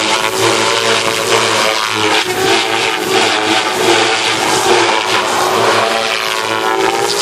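Devil 380 Fast radio-controlled helicopter in flight: a steady whine from its motor and rotor, the pitch drifting up and down as it manoeuvres.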